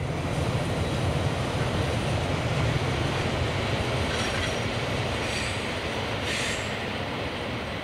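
Stadler FLIRT III electric multiple unit passing, a steady rumble of its wheels on the rails, with a few brief high squeals from the wheels on the rail between about four and six and a half seconds in.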